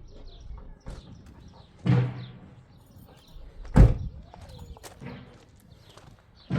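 Two car doors slamming shut about two seconds apart, the second louder.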